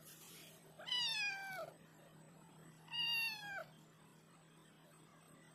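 Tabby cat meowing twice, asking for help. Each meow lasts well under a second and drops in pitch at the end.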